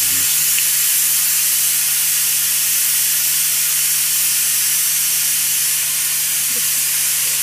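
A loud, steady hiss of noise with a faint low hum beneath it.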